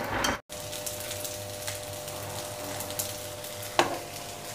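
A steel spoon scraping through rice, black chickpeas and potatoes being fried in a steel pan, cut off abruptly after half a second; then the mixture sizzling softly in the oil, with faint ticks and a single clink near the end.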